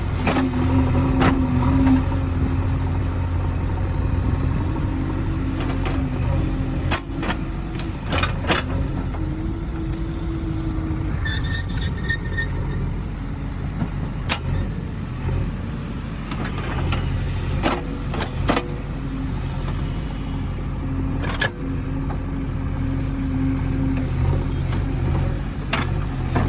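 A heavy diesel engine running steadily, with a whining tone that steps up and down in pitch and scattered sharp knocks.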